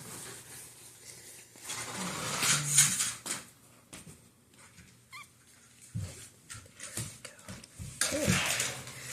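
Newborn puppy squeaking and whimpering while being handled, with rustling from the handling; a loud rustle comes about two seconds in, a thin rising squeak about five seconds in, and a wavering cry near the end.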